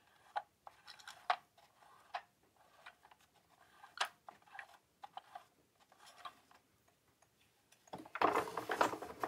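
Plastic Fisher-Price Chatter Telephone pull toy being handled: scattered light clicks and ticks from its plastic parts. About eight seconds in comes a louder, denser clatter as it is set back on a wooden shelf.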